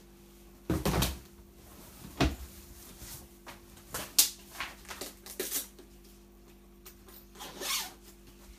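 A heavy Dainese one-piece leather motorcycle race suit being handled: two dull thumps about one and two seconds in as it is put down on the floor, then a scatter of short scrapes and clicks as the leather and its fittings are moved about.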